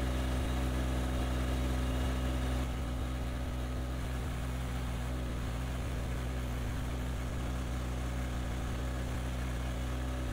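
Kubota compact tractor's diesel engine running steadily at idle while it powers the backhoe, its level easing slightly about two and a half seconds in.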